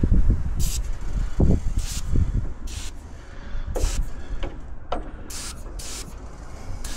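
Aerosol silicone lubricant sprayed in about six short hissing bursts into a stiff door latch and lock mechanism, with low knocks and handling noise between the bursts.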